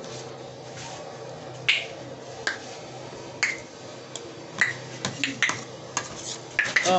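Close-up eating sounds: a string of short, sharp clicks from spoon and fork on a ceramic plate and from chewing, spaced irregularly about a second apart at first and coming quicker near the end.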